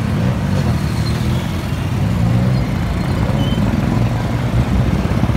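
Road traffic on a busy street: motorcycle and car engines running steadily together as a continuous low rumble.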